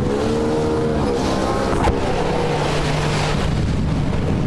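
Outboard engine of an inflatable lifeboat running at high speed, its pitched note wavering and then sinking into the rush of water and spray against the hull, with one brief knock about two seconds in.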